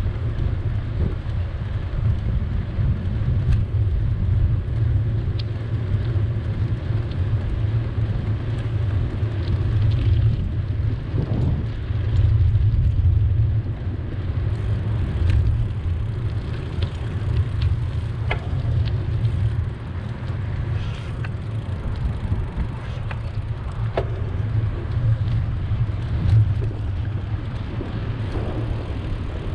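City street traffic and the steady low rumble of a bicycle ride along the road, with scattered faint clicks.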